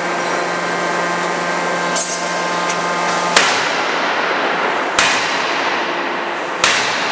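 200 kJ CNC die-forging hammer striking three sharp blows, about a second and a half apart, in a turbine-blade forging, over a steady machinery hum that drops out at the first blow.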